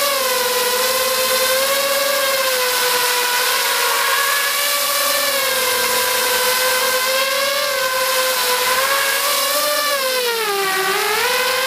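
FPV quadcopter's brushless motors and propellers whining in flight, heard from a camera on the frame. The pitch wavers up and down with throttle, dips about ten seconds in, then rises again near the end.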